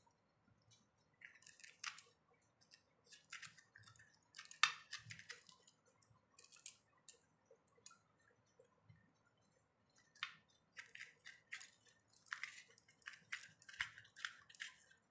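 Faint, irregular scraping and crunching of a serrated metal peeler digging the seeds and pith out of slit bitter gourds.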